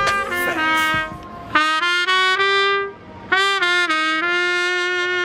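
Trumpet playing held notes in two short phrases broken by brief pauses, then one long sustained note from about three seconds in.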